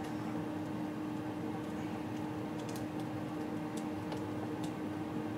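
Faint, scattered light clicks of small plastic action-figure parts, a bow and arrow accessory, being handled and fitted together in the fingers, over a steady background hum and hiss.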